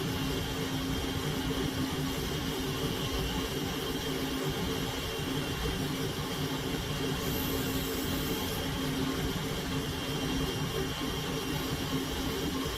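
Steady hum and whine of a workshop machine's motor running without change, with a high tone over a lower hum.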